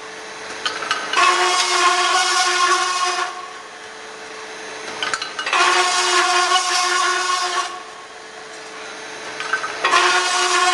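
High-speed carbide circular saw cutting metal tube in an automatic cycle. The spinning blade gives a steady hum, and three cuts, each about two seconds long, sound as a loud, ringing, high-pitched whine. They start about a second in, again about four seconds later, and near the end.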